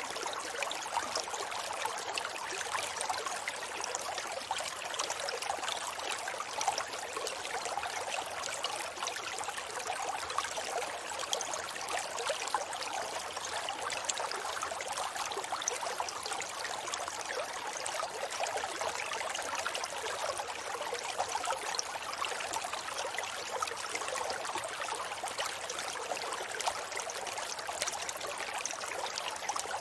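River water flowing steadily, an even rushing sound that is light and hissy, with little deep rumble.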